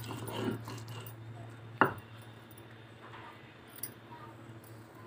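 A flat metal scraper working ground lentil paste on a stone grinding slab, with one sharp clink of metal on stone about two seconds in and a fainter one near four seconds. A steady low hum lies underneath.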